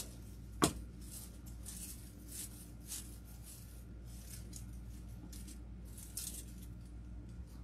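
Artificial greenery stems rustling as they are cut and tucked into a wreath, with one sharp snip less than a second in and softer rustles after it.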